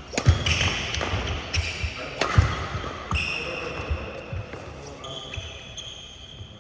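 Badminton play: several sharp racket and footwork impacts, the loudest about two and a half seconds in, mixed with high-pitched shoe squeaks on the court floor.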